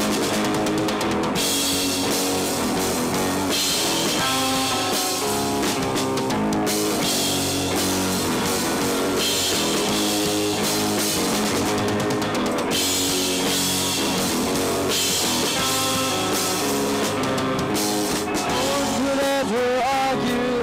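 Live rock band playing: electric guitars, electric bass and drum kit, with cymbals coming in and out every couple of seconds.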